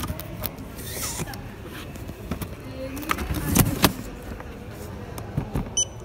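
Handling noises at a shop checkout counter: scattered knocks and rustling of goods, with a short high beep near the end.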